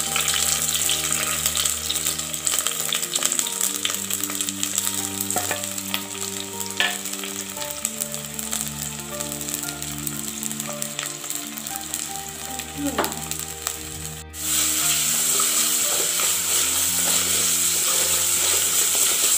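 Sliced shallots sizzling in hot coconut oil in an earthenware clay pot (chatti), stirred with a wooden spatula. The sizzle drops out for a moment about fourteen seconds in and comes back louder.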